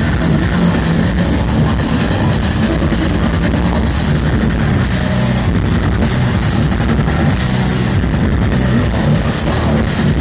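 Heavy metal band playing live through a festival PA: loud, dense distorted guitars and drums, dominated by a heavy low end. The recording itself sounds bad, muddy and overloaded.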